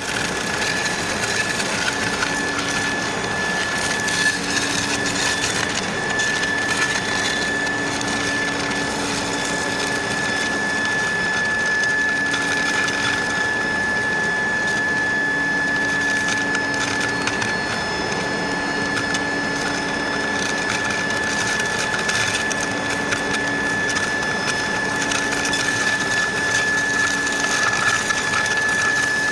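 Induction melting furnace at work: a steady high whine from the medium-frequency power over continuous crackling and spitting from the melting metal charge, with a lower hum that fades in and out every few seconds.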